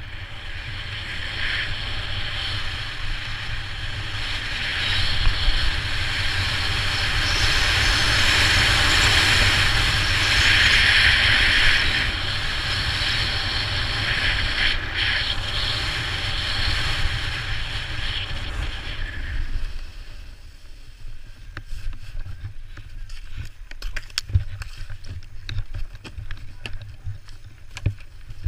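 Snowboard sliding and scraping over packed snow with wind rushing on the microphone, a steady hiss that swells in the middle of the run. About twenty seconds in the board comes to a stop, and scattered clicks and crunches follow as a binding strap is worked.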